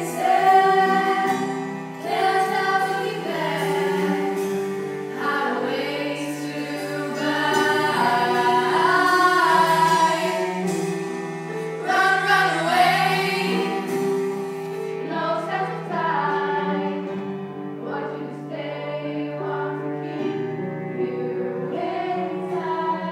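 A stage-musical ensemble singing together over long held chords from a small live band of keyboard, cello and drums. The sound is poor, recorded from the audience.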